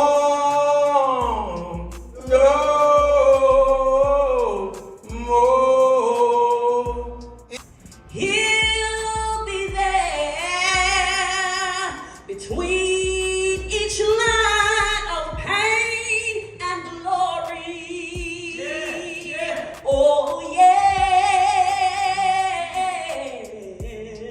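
Slow gospel singing: a voice holding long, wavering notes phrase by phrase, with a low bass accompaniment underneath.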